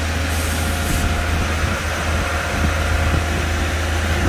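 Diesel engine of a 38-metre concrete boom pump truck running steadily at raised revs while it pumps concrete, with a brief hiss about half a second in.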